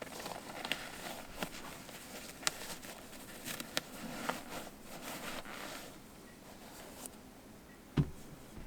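Sneakers and their packaging being handled: soft rustling with scattered light clicks and taps, and a dull thud about eight seconds in as something is set down.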